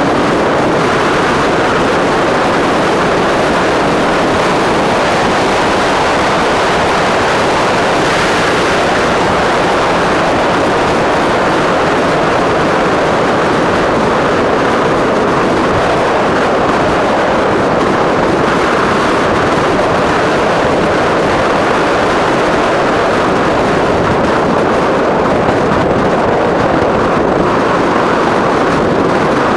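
Steady rushing wind and road noise on the microphone of a camera mounted on a moving Qulbix Raptor electric bike, with no speech and no distinct engine note.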